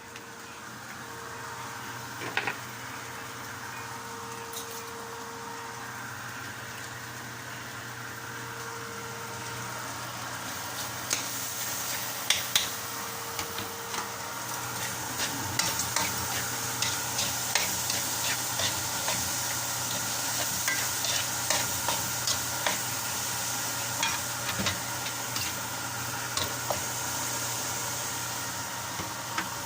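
Food sizzling in a hot pan while a utensil stirs it, with repeated clicks and scrapes against the pan. The sizzle grows louder about ten seconds in.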